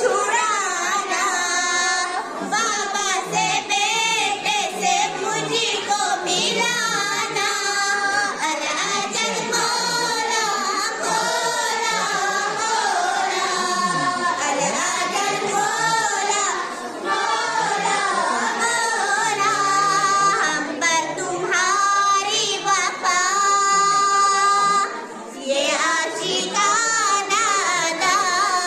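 Young girls singing a devotional manqabat together into a microphone, one voice leading with the others joining in.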